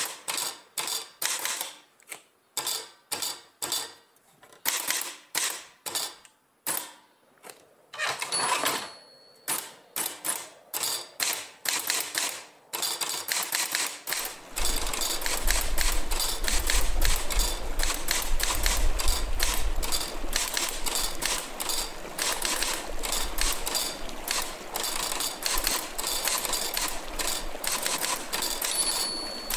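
Soundtrack of a dance film: sharp clicks, each dying away quickly, coming irregularly two or three a second with some quick runs, then about halfway a dense crackling noise takes over, joined by a low rumble.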